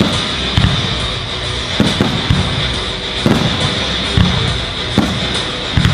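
Aerial firework shells bursting, about eight sharp bangs less than a second apart, each followed by a low rumble.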